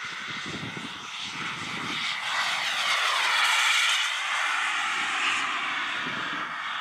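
Turbine whine of a large-scale radio-controlled Me 262 model jet making a low fast pass. It grows louder to a peak about halfway through, then drops in pitch as the jet goes past and climbs away.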